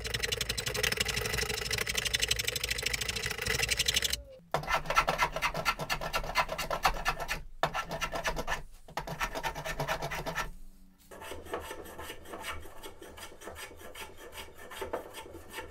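Rasp cutting an oak mallet handle in rapid back-and-forth strokes, thinning it to a sharper taper, with a few brief breaks.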